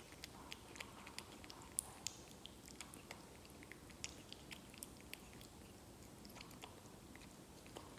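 A baby macaque chewing soft fruit: faint, irregular wet smacking clicks, several a second.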